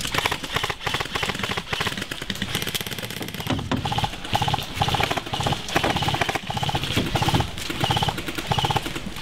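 Airsoft electric guns firing short full-auto bursts, one after another: rapid clicking over a motor-and-gearbox whine, with a burst about every half second in the second half.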